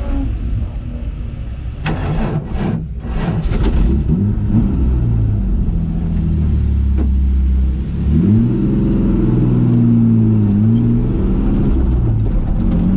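Jaguar XJS race car's engine heard from inside the cabin, running at a steady idle and then revving up as the car pulls away about eight seconds in, the pitch rising and falling with the throttle.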